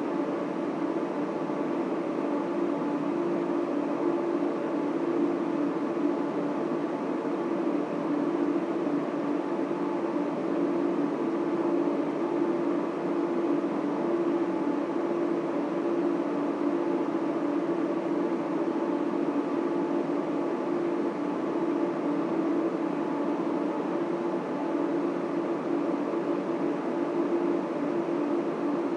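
Data center equipment running steadily: a constant whirring of cooling fans with a hum of several steady tones, the loudest low and droning.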